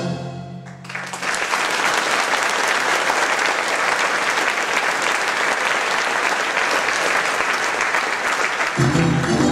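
Audience applauding. It rises about a second in as the last held chord of a sung chorus number dies away, and orchestral music starts again near the end.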